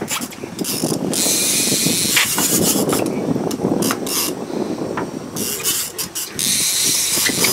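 Trolling rod's fishing reel being cranked to bring in a hooked brown trout, its gears making a fast, steady ratchet-like clicking. Several stretches of high hiss come and go over it.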